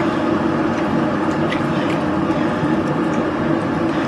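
Kettle heating towards the boil: a loud, steady rushing rumble, with a few faint knocks of a wooden spoon stirring vegetables in the slow cooker.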